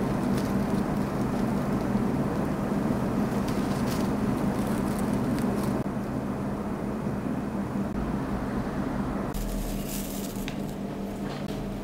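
Steady low hum and rumble of room noise, with a few faint crackles of dry rice straw being pulled apart as a straw-wrapped natto bundle is opened.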